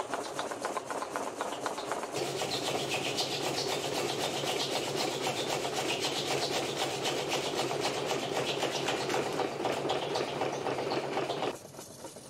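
Sawmill's horizontal saw cutting lengthwise through a large log: a steady rasping drone made of fast, even pulses, with a low machine hum joining about two seconds in. It stops abruptly near the end, leaving a much quieter background.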